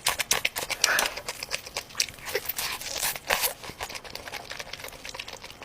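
Close-miked eating sounds: a dense run of quick crunches and crackles as food is bitten and chewed.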